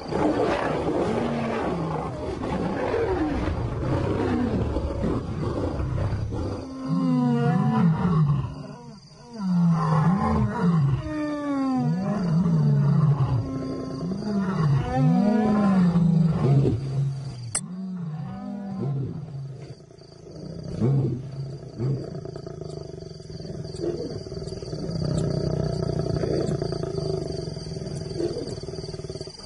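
Male lions fighting: a run of loud, rising-and-falling roars from about a quarter of the way in until just past the middle, giving way to lower, quieter growling for the rest.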